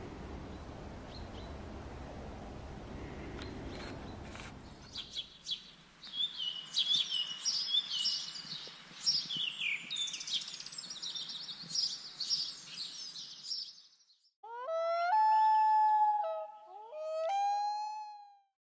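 Low rushing noise, then birds singing in quick high chirps and trills for several seconds. Near the end come two long pitched calls, each sliding up at the start and then holding.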